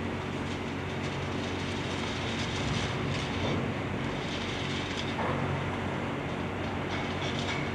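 Hydraulic excavator's diesel engine running steadily as the machine works broken concrete and rebar, with irregular scraping and clattering of the debris and a brief high squeal near the end.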